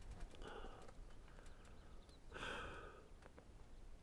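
Near silence, with two faint breathy hisses, one about half a second in and a longer one about two and a half seconds in.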